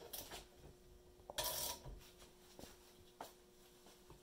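Metal sockets and hand tools clinking and scraping as they are handled and set down on a workbench: a few light clicks, with one longer scrape about a second and a half in.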